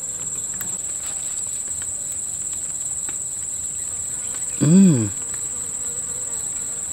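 Insects making a steady, high-pitched drone without a break. About five seconds in, a man's voice gives one short wordless exclamation.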